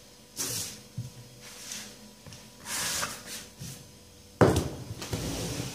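Hands scraping and pressing soft, unkneaded msemen dough out of a glazed earthenware dish into a plastic tub, in short rustling strokes. A single sharp thump comes about four and a half seconds in.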